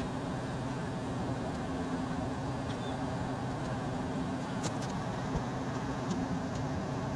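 A steady low engine drone, with a few faint clicks in the second half.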